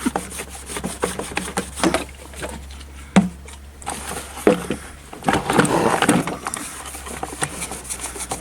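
Hands handling and scraping the plastic and metal parts of a stand mixer's speed controller during disassembly: scattered small clicks and knocks with rubbing and scraping, and one sharp click about three seconds in. A low steady hum runs underneath.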